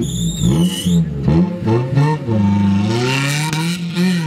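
Off-road race car's engine revving hard on a dirt track, its pitch climbing and dropping several times as it accelerates.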